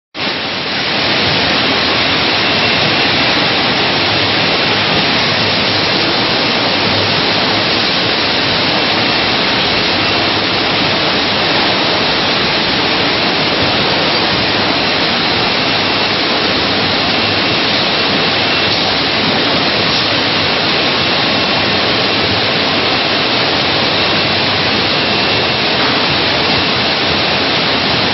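Chocolate production line running: conveyor belts and packing machinery making a loud, steady, even noise with a faint high-pitched whine.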